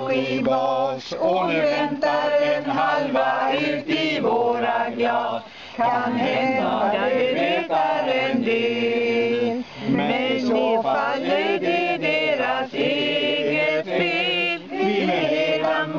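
A small group of men and women singing a Swedish snapsvisa (drinking song) together, unaccompanied, in mixed voices.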